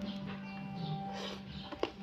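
Background music with steady held tones, and a single sharp click a little before the end.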